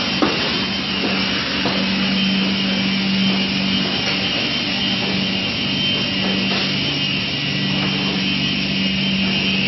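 Continuous PU sandwich panel production line machinery running: a steady mechanical hum with constant whirring noise from its motors and rollers. A light knock comes just after the start, and a second, lower hum joins about seven seconds in.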